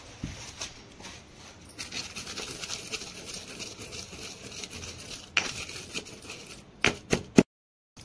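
Stone pestle pounding and grinding damp, unroasted red chillies with spices in a white marble mortar: a quick run of crunching, scraping strokes that starts about two seconds in, with a few louder knocks near the end before the sound cuts off suddenly. The chillies are damp, so they do not crush easily.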